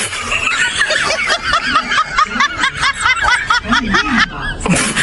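High-pitched snickering laughter, a rapid run of wavering giggles that breaks off briefly near the end: a comic laugh sound effect.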